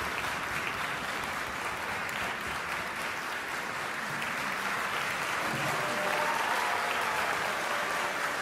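Concert hall audience applauding steadily, a dense patter of many hands clapping.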